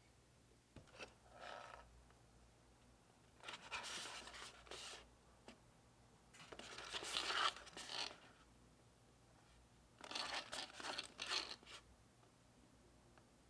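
Crinkly plastic instant-noodle packaging being torn and handled, in four short bursts.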